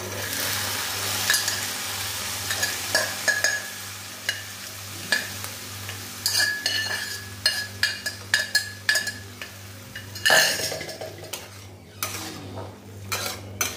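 Boiled chickpeas tipped from an aluminium pressure cooker into a hot kadai of onion-tomato masala, sizzling, while a metal spatula scrapes and knocks against the cooker and the pan. There is one sharp clank about ten seconds in.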